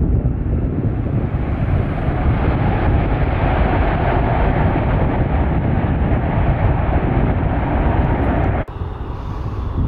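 Boeing 737-8 MAX's CFM LEAP-1B turbofan engines running as the airliner rolls out on the runway after touchdown: a steady low rumble with a roar that grows stronger a few seconds in, then cuts off abruptly near the end.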